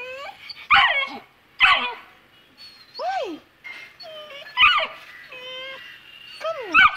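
Saint Bernard puppy crying in a string of short yelps and whines, about seven in all, one about three seconds in rising and falling in pitch. These are the fretful cries of a puppy too scared to go down the stairs.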